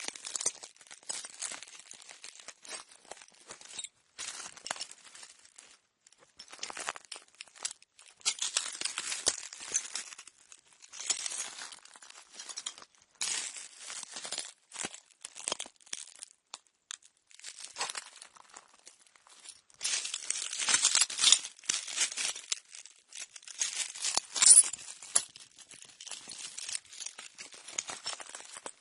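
Slow footsteps crunching over broken glass: each step is a cluster of crackling and clinking shards, with short gaps between steps.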